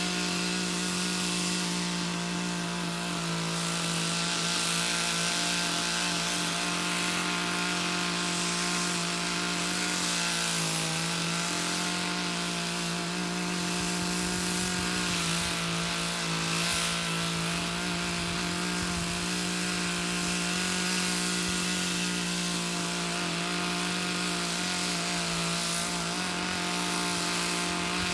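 Two-stroke chainsaw held at high revs and cutting steadily through green wood, with a brief dip in engine speed about ten seconds in.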